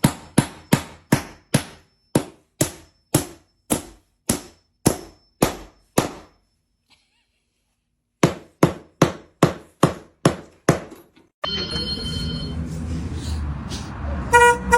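A rapid series of sharp knocks, about two to three a second, that stops for about two seconds and then resumes a little faster. About eleven seconds in, the knocks give way to a steady noisy background with faint tones.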